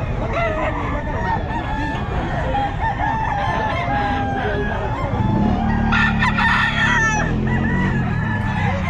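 Several gamecocks crowing and clucking, their calls overlapping, with one louder crow about six seconds in. A low drone joins underneath from about five seconds in.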